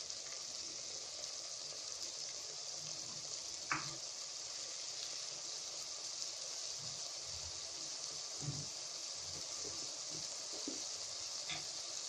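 Onion-tomato masala paste frying in a steel pan with a steady sizzle, broken by a couple of brief clicks.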